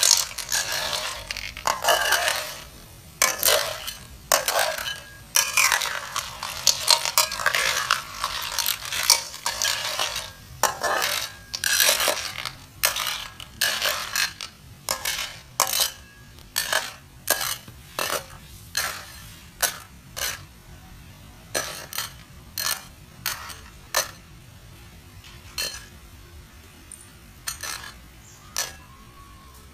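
Repeated sharp knocks and clicks of hand work: a dense, loud clatter for the first ten seconds or so, then separate strokes at about one a second that grow fainter towards the end.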